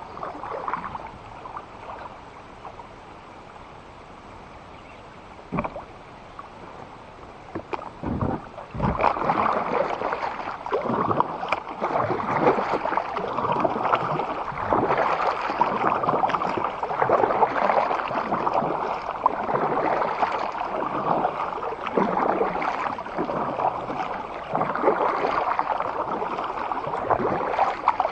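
Water churning and gurgling around a moving kayak, much louder from about nine seconds in, after a few short knocks.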